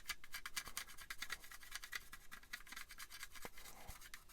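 Faint pencil scratching on a plastic model kit part in quick, short strokes, marking out lines.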